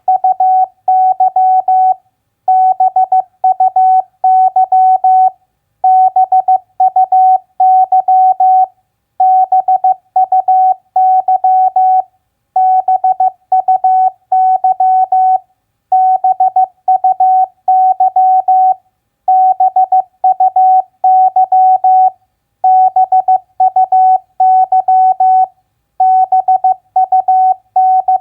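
Morse code at 15 words per minute, sent as a single steady beep tone keyed on and off into dots and dashes. It spells out common three-letter words, one about every three and a half seconds, each followed by a short pause.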